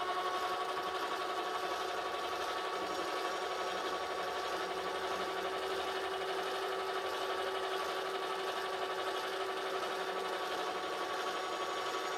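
Small benchtop metal lathe running at a steady spindle speed: a constant motor and gear whine made of several steady tones.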